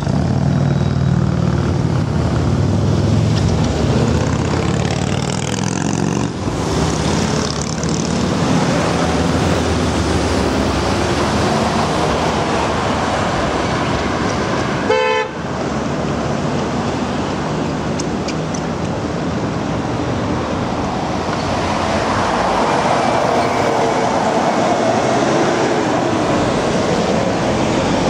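Steady street traffic noise, with one short horn toot about halfway through.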